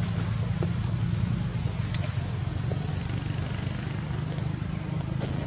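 A steady low motor hum with a sharp click about two seconds in.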